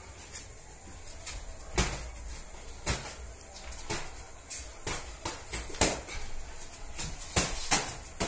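Boxing gloves landing during sparring: a dozen or so irregular sharp smacks of punches hitting gloves and bodies, some much louder than others.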